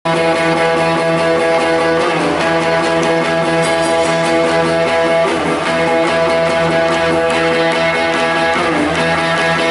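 Live rock band music: a guitar holds a sustained, droning chord, with a brief dip in pitch about every three seconds.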